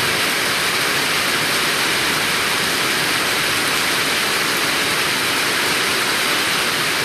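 Heavy rain falling: a steady, even rushing hiss with no breaks.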